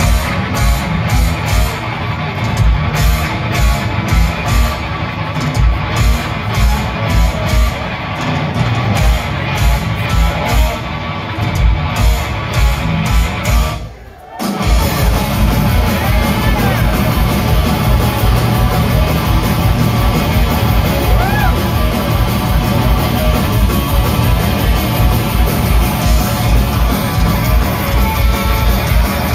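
Thrash metal band playing live: distorted electric guitars over fast, pounding kick drums. The sound drops out briefly about fourteen seconds in.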